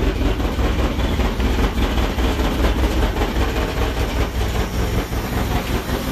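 1966 Ford F-100's engine idling steadily and smoothly on a freshly installed replacement carburetor.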